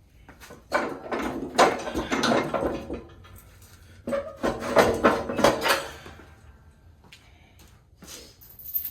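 Knocking and clattering of hard objects being handled, in two spells, about a second in and again about four seconds in.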